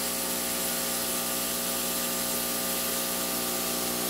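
Laser cutter machinery running steadily: an even hiss with a constant machine hum, from its fans and air assist.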